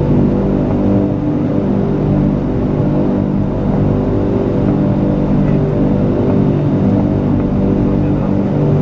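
Antonov An-22's four Kuznetsov NK-12 turboprops with contra-rotating propellers, heard inside the cockpit as a steady, dense low drone made of many held tones over a rumble, at approach power.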